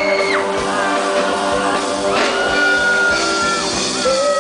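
Live band playing upbeat rock-and-roll music, with electric bass and drum kit, and long held notes that slide down at their ends.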